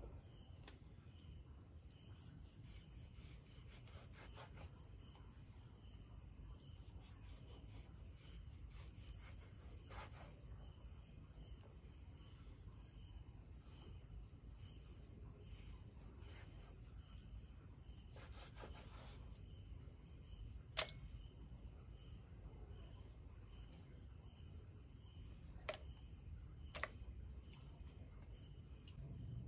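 Crickets chirping in a steady high trill that pauses now and then, with a few sharp knocks of a knife blade meeting a wooden chopping block as raw beef is sliced. The loudest knock comes about two-thirds of the way through.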